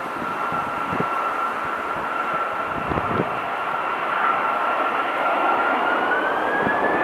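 Boeing 737-800's CFM56 turbofan engines running at run-up power before takeoff with a steady high whine. The whine rises in pitch about six seconds in as the engines spool up.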